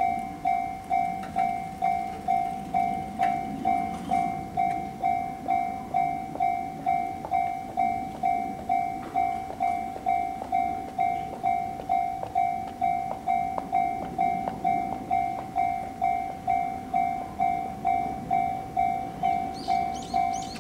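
Japanese level-crossing alarm bell ringing its electronic strike, about two strikes a second, steady and unbroken.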